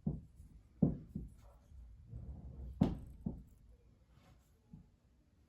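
A handful of light knocks and taps of small wooden workpieces being handled and set down on a bench during glue-up, the loudest about three seconds in.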